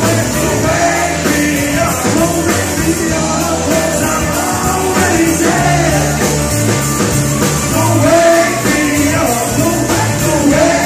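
Live rock band playing loud, with electric guitars, bass guitar and drums, heard from the audience in a club.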